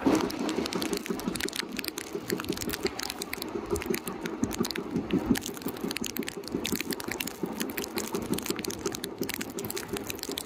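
Passenger train coach running at speed, heard from its open door: a rapid, steady clatter and rattle of wheels and coach, with wind on the microphone.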